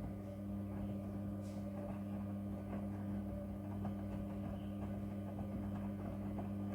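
Midea front-loading washing machine running with a steady low hum, with a few faint clicks over it.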